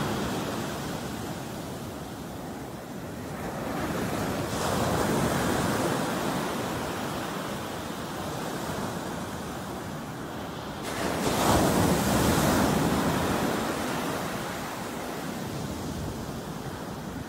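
Ocean surf breaking on the shore, swelling and washing back in slow surges; the loudest wave crashes about eleven seconds in.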